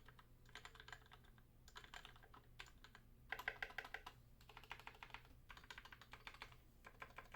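Typing on an Idobao ID80 mechanical keyboard with its case foam-filled and its switches lubed. The switches are 'Pillow' linear switches: Gateron Yellow housings and springs with UHMWPE stems. The keystrokes come in several quick bursts separated by short pauses, the loudest run about three seconds in.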